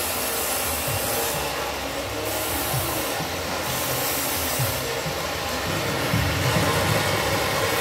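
Steady, loud rushing hiss of steel-workshop noise, with faint low knocks now and then.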